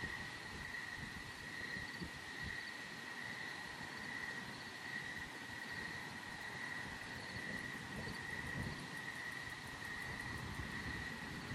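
A steady, high-pitched chorus of night insects trilling in a fast pulse, over low, gusting wind noise on the microphone.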